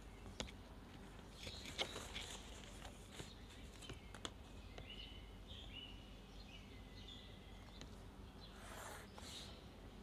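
A few light taps and rustles as a plastic ruler and graph paper are handled, and a pencil drawing a line along the ruler near the end. A bird chirps faintly in the background around the middle.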